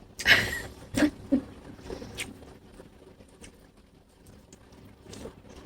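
Close-miked eating sounds: chewing and mouth smacks, with a louder crunchy burst in the first half second and a few sharp clicks over the next two seconds.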